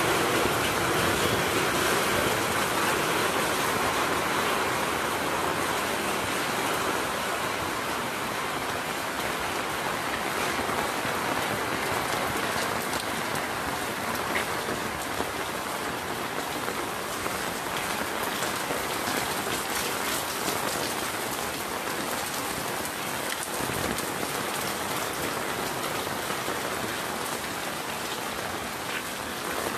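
Steady rain falling on hard surfaces, a constant even hiss, slightly louder in the first few seconds.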